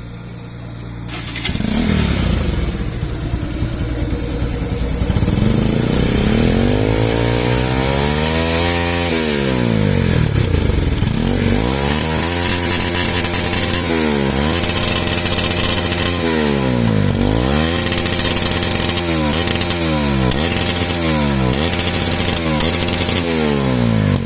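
Bajaj Pulsar NS200's single-cylinder engine started about a second in and idling briefly, then revved again and again, the exhaust pitch rising and falling with each blip. Its note comes through a silencer with a hole drilled in its underside to make it louder.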